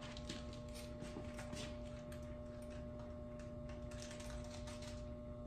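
Steady electrical hum with faint, scattered light clicks and ticks of hand work on the truck's sheet-metal fender.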